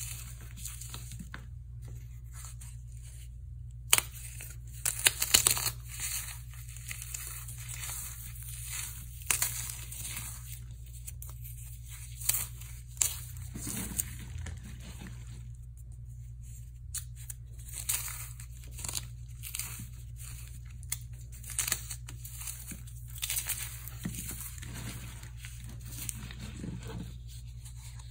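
Hands crushing and crumbling dry floral foam crusted with dried paste and sprinkles: irregular crunching and crackling, loudest about four to six seconds in.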